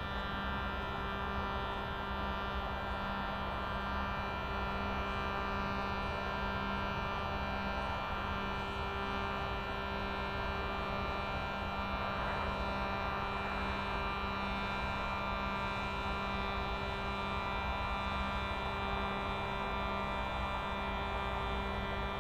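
A hand-pumped reed drone box holding a steady chord of several notes, with one of the notes fading in and out every few seconds.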